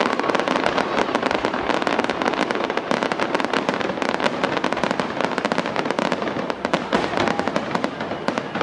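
Fireworks going off: a dense, continuous rattle of many quick bangs and crackles following one another several times a second.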